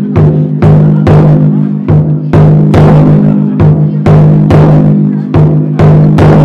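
Festival taiko drum beaten in a steady rhythm, about two to three strokes a second, each stroke ringing on with a deep sustained boom.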